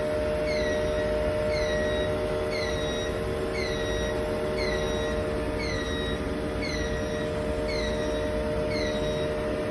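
Sputter deposition system running with an abnormal noise: a short, high squeal that drops in pitch, repeating regularly about once every second, over a steady machine hum.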